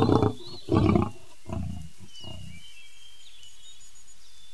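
Lion roaring: four calls in quick succession, the first two loudest, the last two weaker and shorter.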